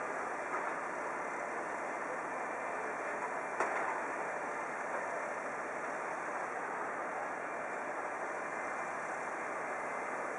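Steady distant vehicle noise from fire engines and traffic running at a snowy city square, an even hum with no clear rhythm. There is one short click about three and a half seconds in.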